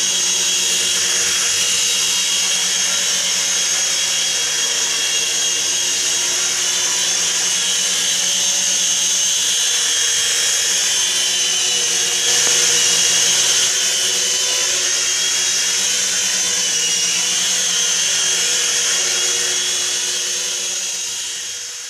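Small electric motors and tandem rotors of a Syma S026G mini Chinook toy RC helicopter whining steadily in flight, the pitch wavering slightly. The sound fades out near the end.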